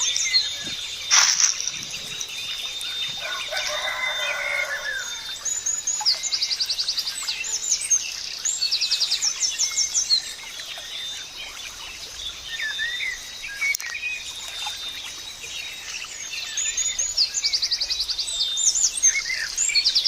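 Several birds singing and calling outdoors, with high, fast trilled phrases that repeat every few seconds among scattered chirps, and a faint steady high whine beneath them. A short knock about a second in.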